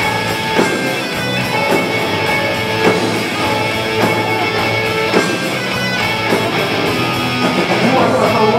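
Live punk band playing loud: distorted electric guitars and a drum kit.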